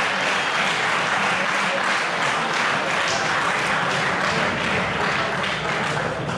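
Crowd of spectators applauding, a steady dense clapping.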